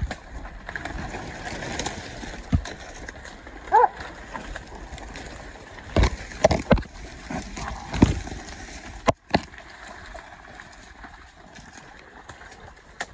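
Wading and pushing through palmetto brush and shallow muddy swamp water: continuous rustling and sloshing, with several sharp splashes and knocks from about six seconds on and one short pitched call about four seconds in.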